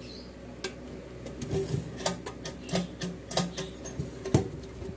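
Fine sandpaper scratching at a rice cooker's copper switch contact in short, irregular strokes. It is scrubbing off burnt black residue so the switch makes contact again; the cooker has been stuck on warm.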